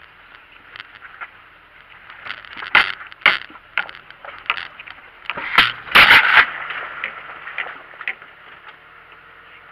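Irregular clatter, knocks and scraping from a camera mounted on the outside of a Jeep as it crawls over rock, mud and snow, over a steady hiss. The knocks grow louder a couple of seconds in, with the heaviest cluster about six seconds in, then die down.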